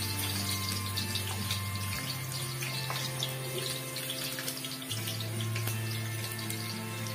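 Sliced shallots and garlic sizzling as they stir-fry in hot oil in a wok: a steady crackling hiss. Background music with low held notes plays underneath.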